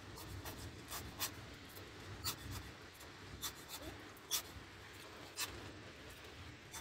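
Scattered sharp clicks and spatters, about eight of them at irregular intervals, as brown paint is squeezed from a plastic squeeze bottle and flicked by hand onto canvases, over a low steady background rumble.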